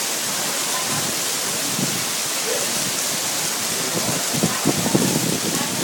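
Heavy rain pouring down on a street and pavement, a steady hiss. About four seconds in, a short stretch of low, uneven rumbling thumps rises above it.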